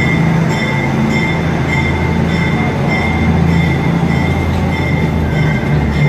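Yellow NYC subway work train rolling out of the station past the platform: a steady rumble with a low hum and a thin high tone that pulse in a regular rhythm.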